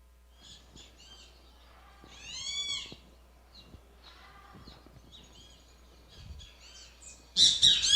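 Recorded birdsong: a series of short high chirps, with a longer arching call about two seconds in and louder calls near the end.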